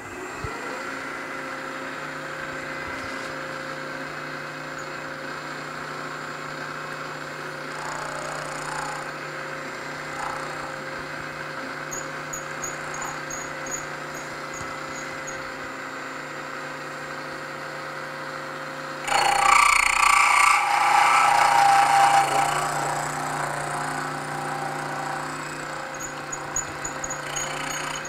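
Milling machine spindle spinning up and running steadily, with a 7/8-inch four-flute high-speed-steel end mill. About 19 seconds in, a louder rough cutting noise rises for a few seconds as the cutter bites into the side of the workpiece, then eases back.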